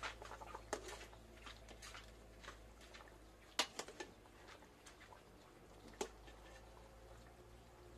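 Metal ladle stirring and knocking in a pot of boiling chicken soup, giving scattered light clicks and a few sharper knocks, the loudest about three and a half and six seconds in.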